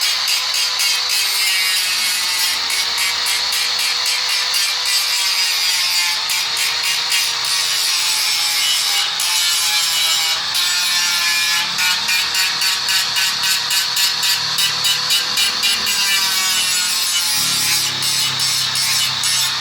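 Hand file rasping across the welded joint of a steel bandsaw blade in quick, regular strokes, a few a second, over a steady wavering whine.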